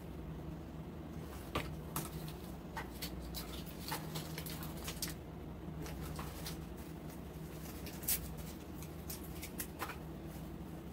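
Artificial flower stems being handled and pushed into floral foam: scattered light clicks and rustles at irregular times over a steady low hum.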